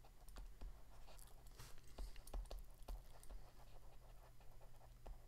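Faint, irregular light taps and scratches of a stylus writing on a graphics tablet, over a low steady hum.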